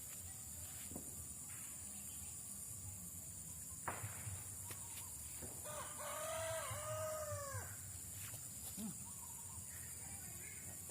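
A rooster crowing once, a single wavering call of about two seconds, starting about six seconds in. A sharp click comes a couple of seconds earlier.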